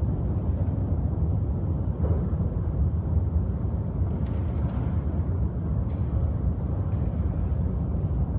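Steady low rumble of an aircraft hangar's rotating carousel turntable turning under a parked light aircraft, with a few faint clicks.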